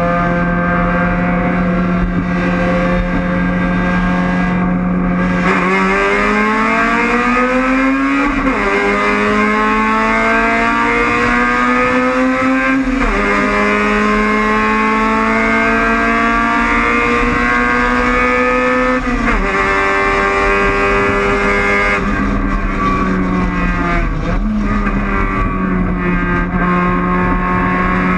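Honda Civic race car's four-cylinder engine holding a steady pitch, then about five seconds in going to full throttle at the race start. The pitch climbs and drops sharply at each upshift, three times, then eases off near the end before holding steady again.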